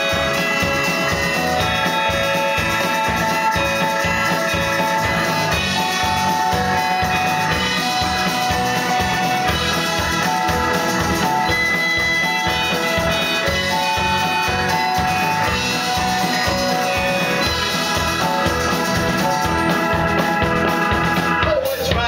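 A live rock band plays through a club PA: acoustic guitar, electric bass, keyboard and drums. Held notes ring over a steady low beat.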